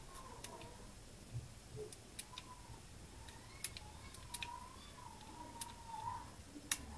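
Scattered small metallic clicks from lock picks and a just-picked euro profile cylinder being handled, a dozen or so sharp ticks with the clearest near the end. A faint wavering tone runs under them until about six seconds in.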